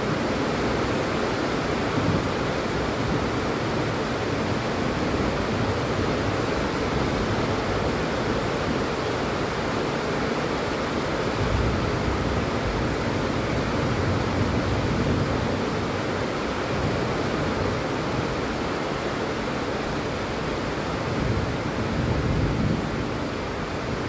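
Steady rain falling, an even hiss with no break, and a low rumble swelling briefly a couple of times.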